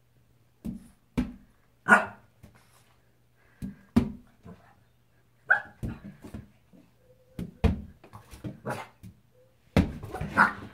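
Boston Terrier puppy playing with a rubber balloon: the balloon thumps off its nose and the floor at irregular intervals, mixed with a few short barks, with a busy burst of thumps and barks near the end.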